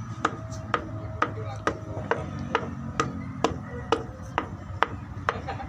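A hand striking bamboo in a steady rhythm: sharp knocks, about two to three a second, each with a brief ring.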